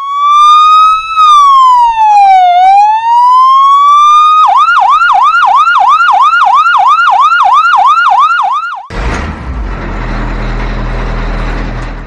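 Electronic ambulance siren sound effect: a slow wail that rises, falls and rises again over about four seconds, then switches to a fast yelp of about three sweeps a second. About nine seconds in, the siren cuts off and a steady low engine-like rumble takes over.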